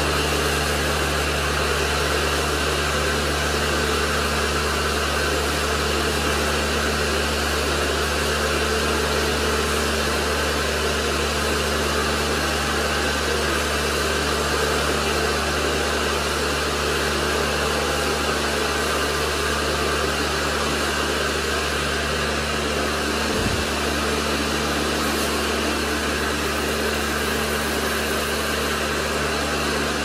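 Small electric pressure washer running steadily: a constant motor-and-pump hum under the hiss of the water jet spraying onto a concrete floor. It is pumping through a homemade high-pressure line made from ordinary garden hose.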